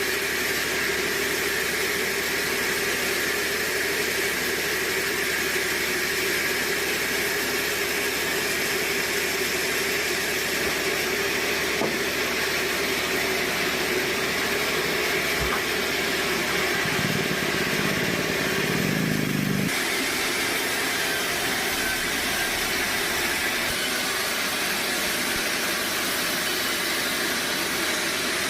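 Sawmill machinery running steadily: a continuous mechanical hum with a hiss over it.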